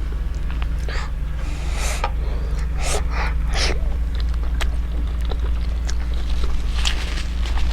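A person eating spicy momo, with a few short sniffs and sharp breaths between mouthfuls over a steady low hum.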